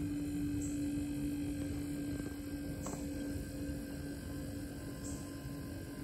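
Luko 12-volt compressor fridge/freezer running with a steady hum that fades near the end as the compressor geared down a notch: the slower speed of eco mode.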